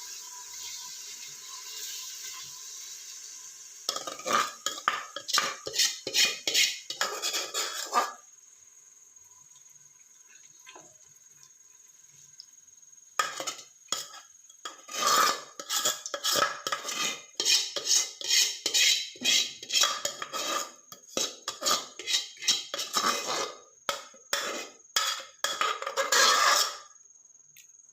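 A spoon scrapes and clinks against a heavy-bottomed pot in quick strings of strokes as marinated chicken is spread into a layer over the pot's bottom. There are two long bouts with a pause between them, after a steady hiss in the first few seconds.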